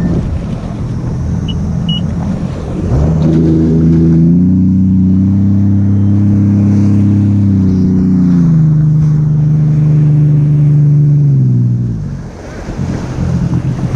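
Jet ski engine revving up suddenly about three seconds in and holding a steady pitch, then easing off in two steps and dropping back near the end, over steady wind and water noise.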